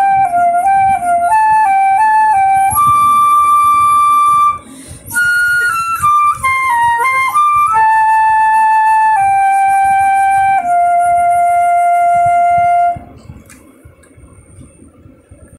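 Silver concert flute playing a slow melody: a run of short stepping notes, then long held notes, with a brief breath pause about four and a half seconds in. The playing stops near the end.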